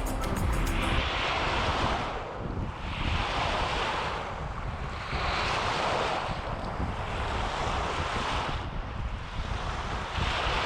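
Waves washing onto a lake beach, one wave every two seconds or so, with wind on the microphone.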